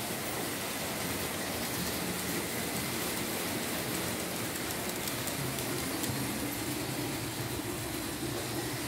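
Märklin H0 model train, a BR 18 class steam locomotive hauling compartment coaches, running steadily along the track. The sound is the even running noise of its small electric motor and its wheels rolling on the rails.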